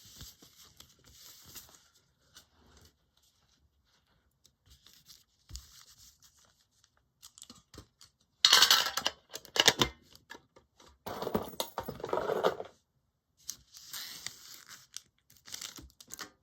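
Foil booster pack wrapper being torn open and crinkled, two loud ripping stretches about halfway through, between quieter rustling.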